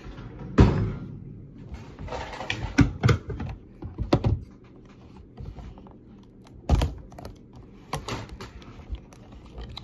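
Handling and opening a box of trading cards: irregular taps, clicks and scraping of the cardboard packaging. A few sharper knocks stand out, the loudest just under a second in.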